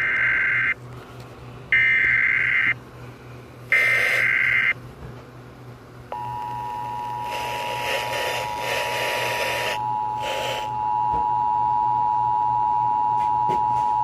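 Emergency Alert System SAME header: three one-second bursts of data tones about a second apart. About six seconds in, the steady two-tone EAS attention signal follows. Together they open a broadcast flood warning alert.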